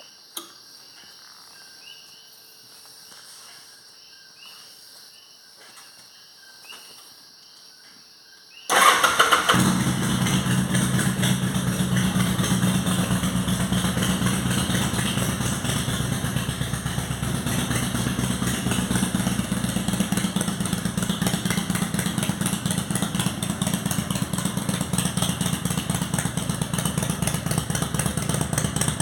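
A motorcycle engine starts suddenly about nine seconds in and then runs steadily with a rapid, even exhaust pulse. Before it starts, faint chirping.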